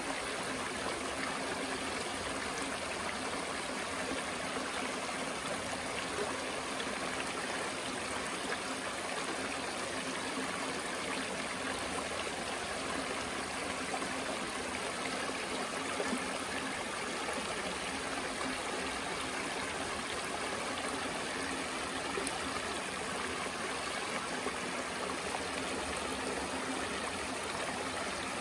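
Shallow creek water rippling and splashing steadily over low, flat rock ledges.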